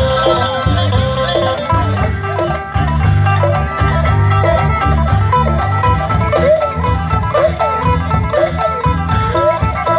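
Live Isan folk ensemble playing: long-necked phin lutes pick a quick, bending melody over a steady beat from large barrel drums.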